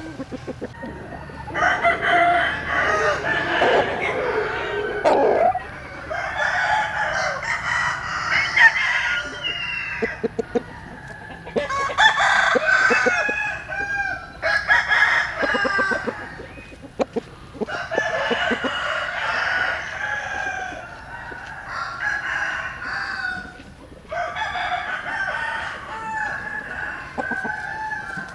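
Roosters crowing one after another, a new crow every few seconds with hardly a pause between them, over some short clicks.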